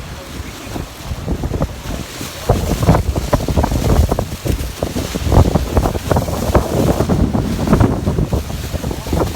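Rushing roar of Niagara Falls heavily buffeted by wind on the microphone, with the gusts growing stronger about two and a half seconds in.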